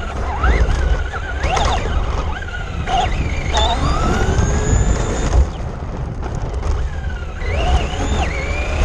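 Traxxas RC car's motor whining, rising and falling in pitch several times as it speeds up and slows. Under it is a steady low rumble of the car's wheels and chassis on rough pavement, heard from a camera mounted on the car.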